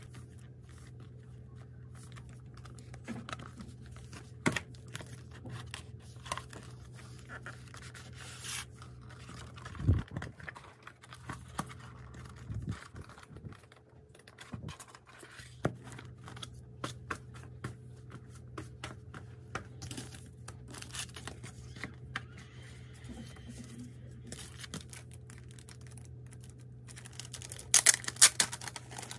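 Album packaging handled by hand: a plastic sleeve crinkling and tearing, the pages of a photobook flipping, and paper cards being laid down, with many small clicks and taps. A louder flurry of rustling comes near the end.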